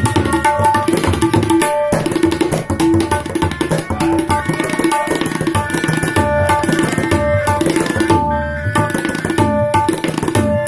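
Tabla pair played solo in rapid, unbroken strokes. The dayan rings at a steady pitch over deep bass strokes from the bayan.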